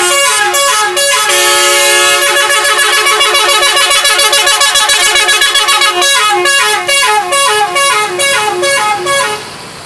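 Indonesian bus telolet horn, a multi-note musical air horn, playing a loud tune: a fast run of rapidly alternating notes, then slower stepped notes, stopping shortly before the end.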